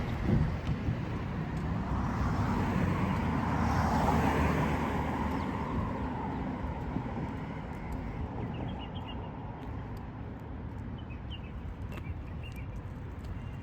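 Street traffic: a car passes, its tyre and engine noise swelling to a peak a few seconds in and then fading. A lower steady hum of traffic follows, with a few faint high chirps near the end.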